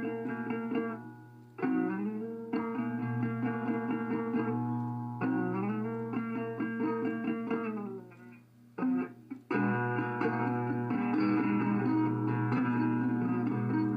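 Guitar solo playing repeated phrases with bending notes over a low steady drone. It pauses briefly twice and turns fuller and busier toward the end.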